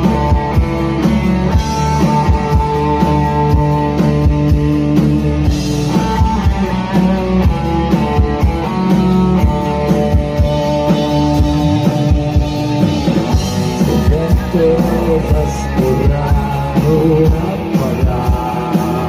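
Live rock band playing loud through a PA: distorted electric guitar over a steadily pounding drum kit.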